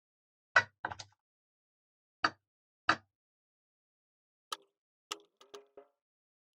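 Parts of a radio-control truck being handled and fitted back together: about five sharp knocks in the first three seconds, then a quick run of lighter clicks.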